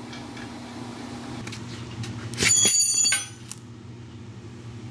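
A sharp metallic clank about two and a half seconds in, ringing with several high tones for under a second before cutting off short, followed by a smaller click, over a steady low hum.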